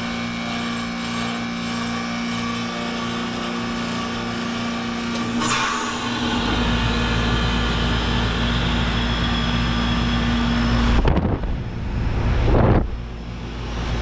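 AirEase Concept 1000 heat pump outdoor unit running through a defrost cycle: a steady hum, then a short whoosh about five and a half seconds in, after which a deep rush of air sets in. Near the end the hum drops out and there are loud rustling bursts.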